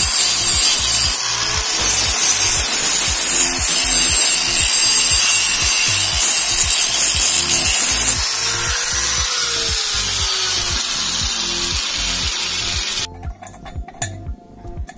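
Handheld electric angle grinder grinding against the metal casing of a small 50 cc generator engine: a loud steady hiss that stops abruptly about thirteen seconds in. After it stops, light metallic clinks from parts being handled, over background music with a steady beat.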